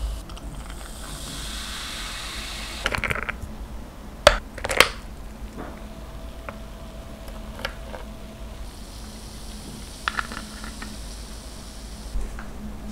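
Carbonated soda poured over ice in a glass mug, fizzing with a high hiss. About three to five seconds in come a few sharp clinks of ice against the glass, which are the loudest sounds. The fizzing hiss rises again near the end.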